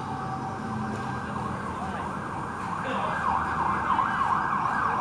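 Siren of an emergency vehicle in a fast rising-and-falling yelp, growing louder from about halfway through.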